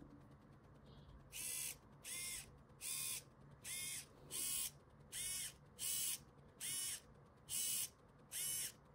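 SG90 micro servo in a 3D-printed rack-and-pinion actuator whirring in ten short bursts, about one every three-quarters of a second. Each whir rises and falls in pitch as the servo turns the plastic pinion and drives the rack back and forth.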